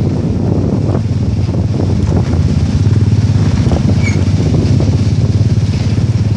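Off-road dune buggy engine running steadily at low road speed on a dirt road, with a few short knocks and rattles from the bumps.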